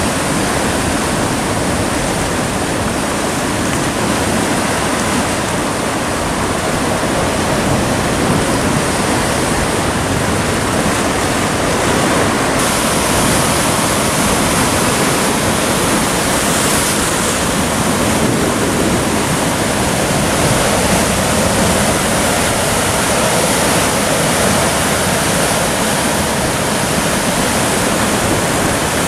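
Sea surf breaking and churning over rocky shore boulders, a loud, steady rush of water with no distinct single crashes.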